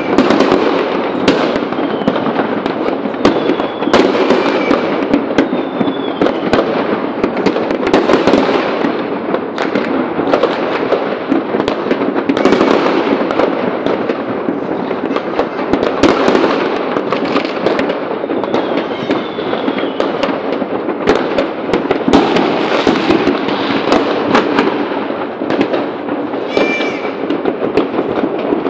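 Many fireworks going off at once: a dense, continuous crackle of bangs and pops, with a few short whistles among them.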